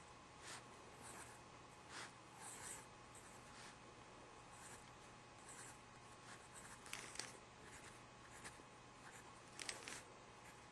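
Faint scratching of a drawing tool's tip on paper in short, irregular strokes, a few of them louder near the middle and near the end. A steady faint hum runs underneath.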